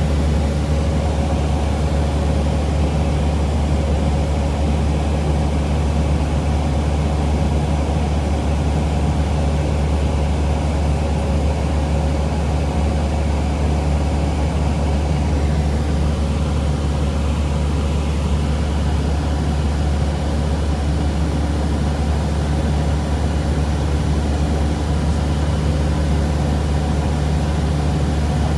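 Steady drone of a Cessna 172 Skyhawk's piston engine and propeller heard inside the cabin in flight, a low hum that holds an even pitch and level throughout.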